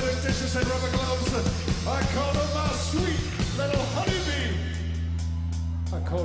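Live rock band playing loud and distorted, with regular drum hits and some shouted vocals. About four seconds in the drums drop away, leaving a held low drone with light cymbal ticks.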